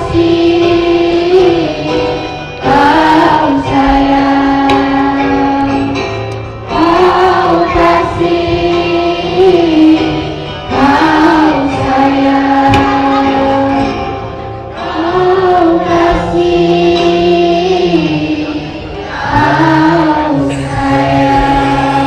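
A group of people singing a slow song together, in phrases of about four seconds that each end on a long held note.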